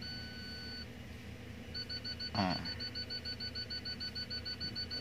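Rear parking sensor beeper in a Daihatsu Terios, switched on with reverse gear and the reversing camera: one long beep, then a rapid steady string of short beeps, about seven a second, which signals an obstacle close behind the car. A short falling sound about two seconds in.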